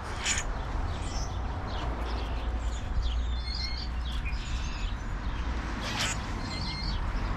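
Small songbirds chirping, many short, scattered calls overlapping, with two sharper, louder notes just after the start and about six seconds in, over a steady low rumble.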